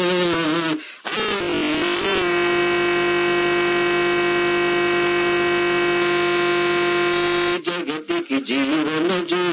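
A man singing a Telugu song into a handheld microphone. About two seconds in he holds one long steady note for some five seconds, then goes back to the wavering melody.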